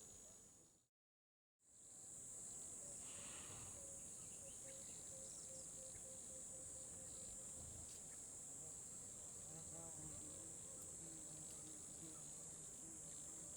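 Faint, steady high-pitched insect chirring that cuts out completely for a moment about a second in.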